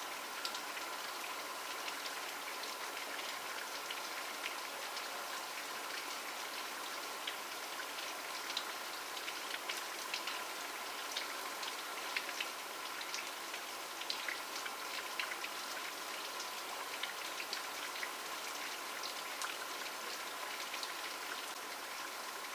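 Steady rainfall: an even hiss with many close, distinct drop ticks scattered through it, and a faint steady tone running underneath.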